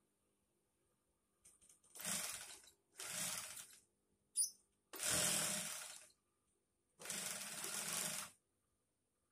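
Industrial sewing machine driven by a clutch motor under the table, running in four short bursts of about a second each as the pedal is pressed and released, with a sharp click between the second and third bursts.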